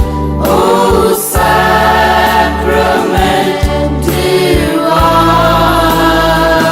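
Devotional choir music: voices singing held notes over a steady low accompaniment.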